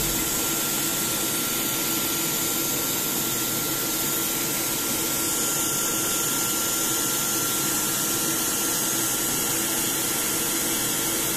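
Skin air cooling machine running steadily, blowing chilled air through its hose: an even rush of air with a thin, steady high tone in it.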